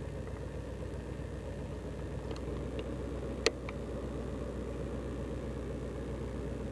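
Steady low engine rumble of a 1971 Dodge Coronet, heard from inside the car, with a few faint clicks about halfway through.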